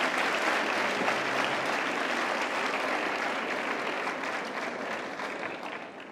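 Audience applauding at the end of a gymnastics routine, the clapping fading out near the end.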